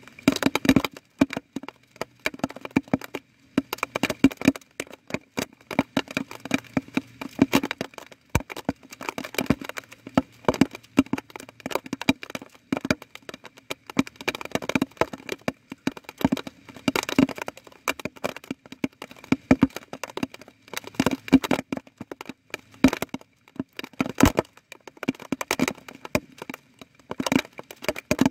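Raindrops falling on a hard surface close to the microphone: a dense, irregular run of sharp taps, some louder than others.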